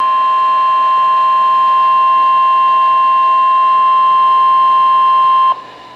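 NOAA Weather Radio warning alarm tone: a single steady, loud 1050 Hz tone that cuts off abruptly about five and a half seconds in.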